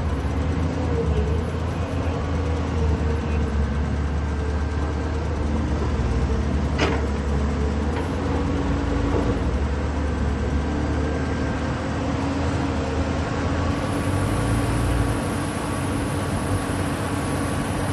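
Caterpillar 320D excavator's diesel engine running steadily under a deep drone, with faint thin whining tones above it. A single sharp knock about seven seconds in, and the engine note shifts near the end.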